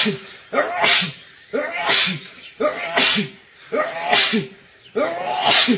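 A man sneezing over and over in a rapid run, about one sneeze a second: six in a row, each a short voiced catch in the throat ending in a sharp, hissing 'choo'.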